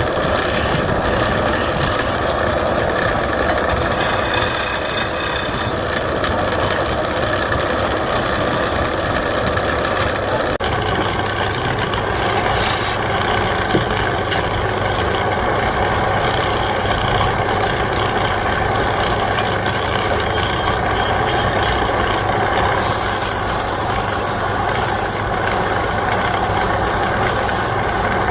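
Wood lathe running steadily, its sound changing abruptly about ten seconds in and again near the end.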